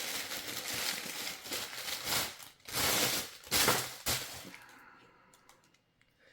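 Toy packaging being opened by hand: a crackly rustling and crinkling with clicks, loudest about three seconds in, then dying away to a few faint clicks.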